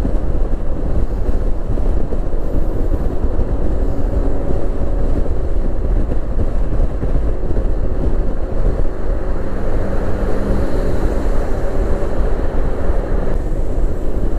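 Wind rushing over the microphone together with a Yamaha NMAX scooter's engine running steadily while it rides at road speed, a loud, even rumble with a faint steady engine tone.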